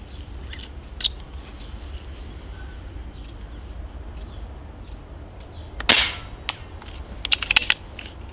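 A Stoeger XM1 S4 Suppressor PCP air rifle fires one suppressed 4.5 mm pellet shot about six seconds in, a short sharp report. Under two seconds later comes a quick run of sharp clicks, with a single smaller click near the start.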